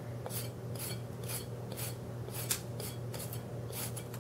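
Vegetable peeler scraping down a raw carrot in repeated short rasping strokes, about two a second.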